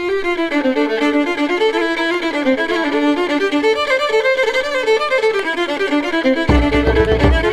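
Background music: a fiddle plays a quick melody, joined near the end by a low bass beat.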